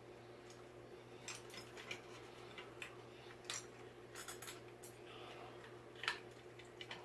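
Scattered small clicks and metallic clinks of ceiling-fan light-kit parts being handled and fitted, irregular and quick, the sharpest about six seconds in, over a faint steady hum.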